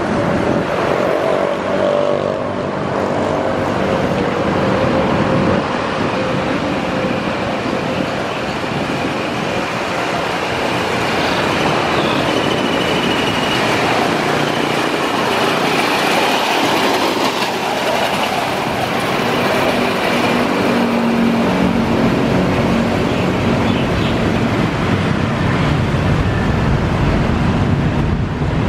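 Steady road traffic of cars and motorcycles passing beside the railway line. Over the last third a small engine's hum grows louder as a motorized rail speeder (draisine) comes along the track.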